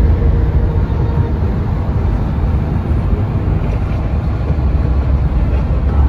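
Steady low rumble of a vehicle driving along a road, road and engine noise heard from inside the cabin.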